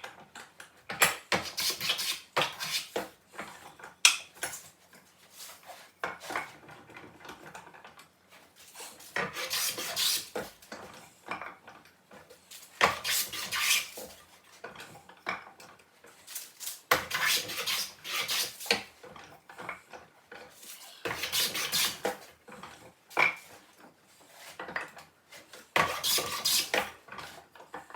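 No. 5½ jack plane smoothing timber faces in repeated strokes of about one to two seconds each, with knocks and clatter from the wood and tools between strokes.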